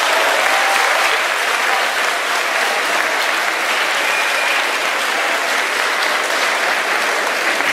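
Audience applauding: many people clapping together, a dense, steady clatter of hands.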